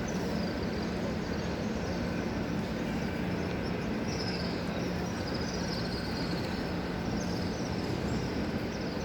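Steady hubbub of a large crowd of pilgrims moving and talking, blended into a continuous din.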